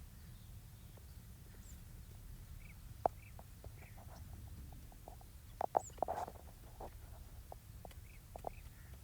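Young francolin (teetar) giving short, scattered chirps and clicks, with a denser, louder cluster about six seconds in, over a low steady rumble.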